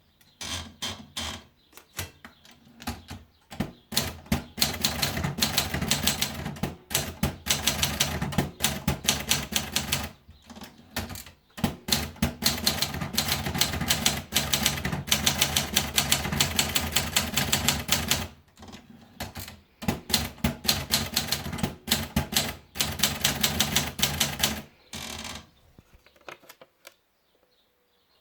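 Adler Junior portable manual typewriter being typed on: runs of quick key strikes with a few short pauses, stopping near the end.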